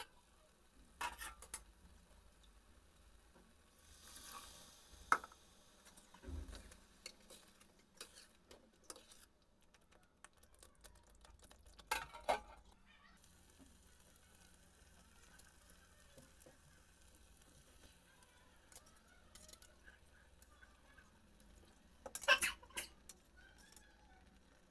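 Metal spatula knocking and scraping on a stainless steel kadai and its steel plate lid, with a loud clatter about halfway through and another cluster of knocks near the end, as chicken curry is stirred. Between the knocks the curry gives a faint sizzle.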